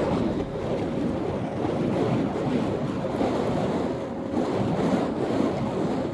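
Burning fire-spinning wicks swung close past the microphone, a steady rushing whoosh of flame.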